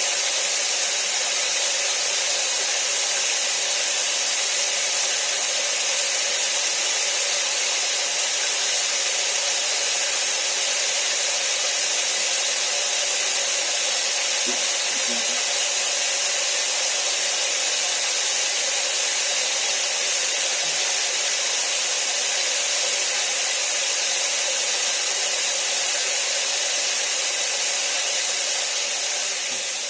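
Steady, even hiss of falling water, like heavy rain, fading out near the end.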